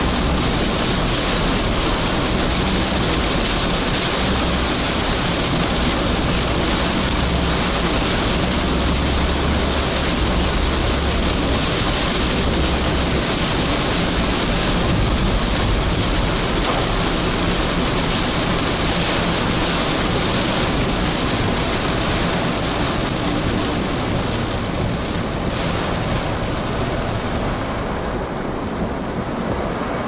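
Heavy rain on a moving car, heard from inside the cabin, with tyres hissing on the wet road and a low road rumble: a steady, loud wash of noise whose upper part thins near the end.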